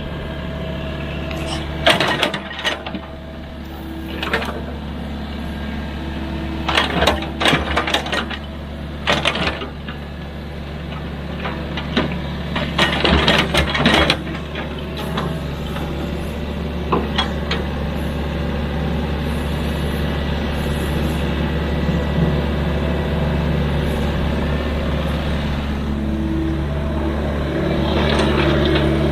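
Excavator's diesel engine running steadily under work, with metallic clanks and knocks from the machine at intervals, several close together around the middle.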